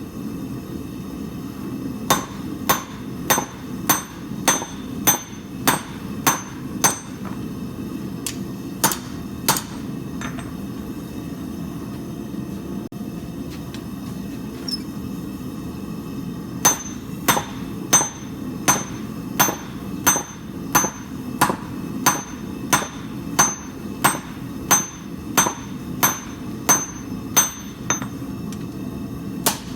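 Hand hammer striking steel on an anvil while forging a bowie knife blade: sharp ringing blows at about three every two seconds, in runs broken by a pause of several seconds about a third of the way in, over a steady low rumble.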